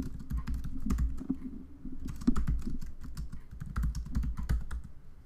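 Typing on a computer keyboard: an irregular run of key clicks, with a brief lull near the middle.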